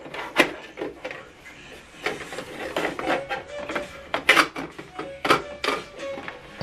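Irregular plastic clicks and knocks as hands handle an HP DeskJet 3750 inkjet printer, moving the paper in its top input tray and pressing on the front of the casing.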